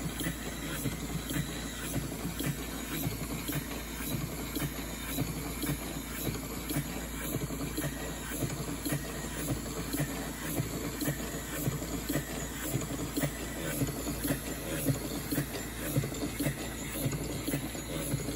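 A model English beam engine running steadily, its exhaust hissing in a regular rhythmic chuff with light mechanical clatter from the moving linkage.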